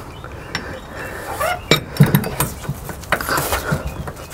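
Light metal clinks and knocks, loudest about two seconds in, as a tool is worked inside a MerCruiser Bravo III gimbal housing to check the alignment of the newly pressed-in gimbal bearing.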